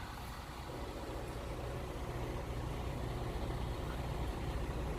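Semi-truck's diesel engine idling steadily with a low rumble that grows gradually louder.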